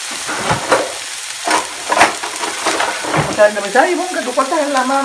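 Diced onion, nopal, jalapeño and tomato sizzling in a nonstick frying pan, with a few light knocks along the way.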